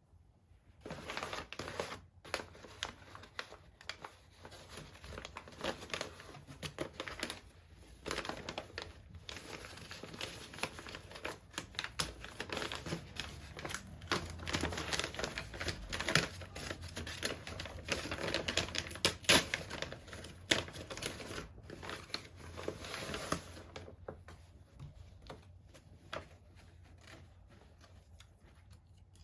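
Close-up crinkling and rustling of packaging being handled and opened, with many small clicks and taps. It starts about a second in and tails off near the end.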